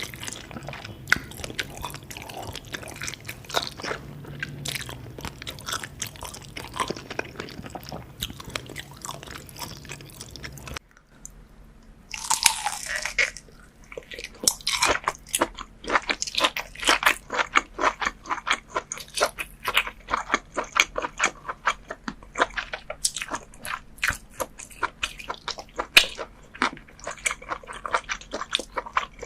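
Close-miked eating sounds of raw scallop sashimi being bitten and chewed: a dense run of wet mouth clicks. About eleven seconds in the background changes as another eater's clip begins, with a short rustling hiss just after.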